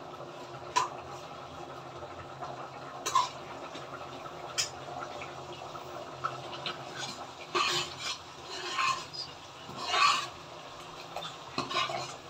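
Utensils stirring and scraping food in an open pressure cooker and a frying pan, with a few sharp clinks of utensil on metal pot in the first half and busier stirring and scraping later, over a steady low hum.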